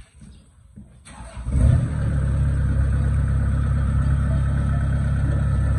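Kubota DC70 Plus combine harvester's diesel engine starting up about a second in, quickly coming up to speed, then running loud and steady.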